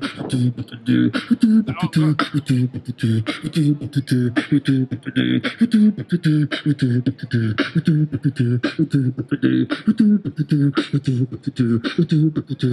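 Beatboxing into a handheld microphone: a steady beat of sharp percussive mouth sounds, with low pitched notes between the hits.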